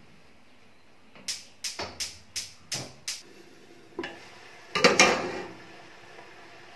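Gas cooker's spark igniter clicking, a quick run of about seven sharp clicks as a burner is lit. Then a knock and a louder metallic clatter as a stainless steel lid is set on the pot.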